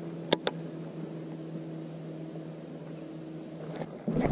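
Electric trolling motor humming steadily with a faint high whine. Two sharp clicks come about half a second in, and a louder low noise starts just before the end.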